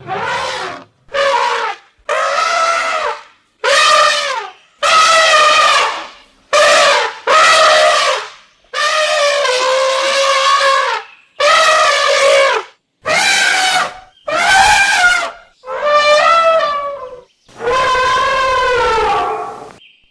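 Elephant trumpeting: about a dozen loud trumpet calls in quick succession, each from under a second to about two seconds long, most rising and then falling in pitch, with short silent gaps between them.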